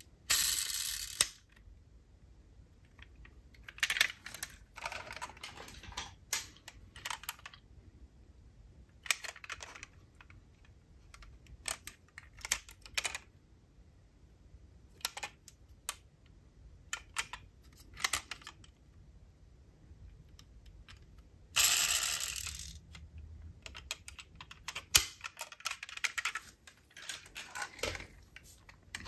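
Die-cast toy cars being handled: scattered sharp clicks and light knocks of small metal and plastic pieces, with two longer, noisier sweeps, one near the start and one about three-quarters of the way through.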